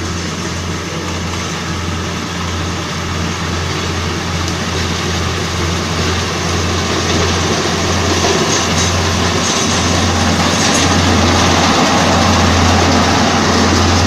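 GY4LZ-1.0 tracked combine harvester running steadily while harvesting wheat, a low engine hum with machinery noise above it, growing gradually louder as it drives closer.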